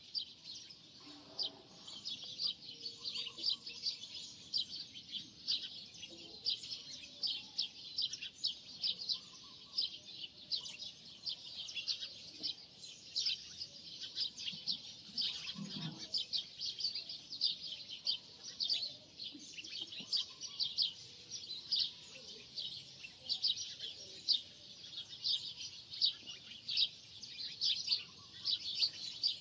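Birds chirping continuously, many quick high chirps a second, with a faint low knock now and then.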